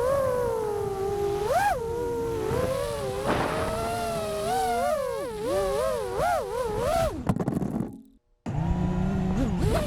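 FPV freestyle quadcopter's brushless motors (2100 kV Vulcan Innovation) whining, the pitch rising and falling as the throttle changes. The whine cuts out briefly near the end, and a lower steady hum plays before the gliding whine comes back.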